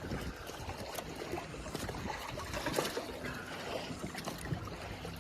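Water sloshing and trickling around a small fishing boat, with scattered small knocks and clicks and a faint steady hum.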